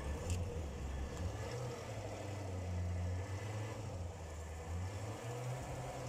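Chevrolet Corvette C7's 6.2-litre V8 idling steadily with its AFM valve lifters freshly replaced, running without misfire and without valve-train noise.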